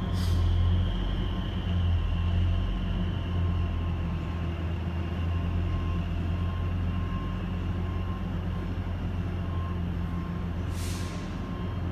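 A steady, loud low mechanical hum with a faint high whine that sinks slowly in pitch. Two short hisses stand out, one right at the start and one about eleven seconds in.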